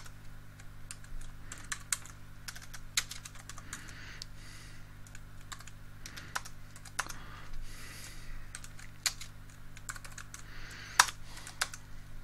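Computer keyboard typing: irregular keystrokes with short pauses as terminal commands are entered, one sharper key strike about eleven seconds in.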